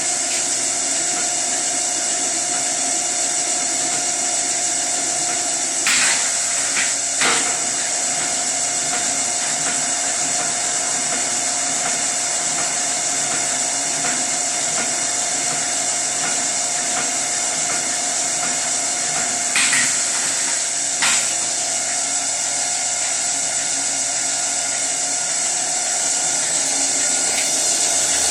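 Hobart M802 planetary mixer running steadily in second gear with a steady whine and hiss, freshly serviced with a new planetary seal and fresh gear oil. Two pairs of brief knocks come about six seconds in and again about twenty seconds in.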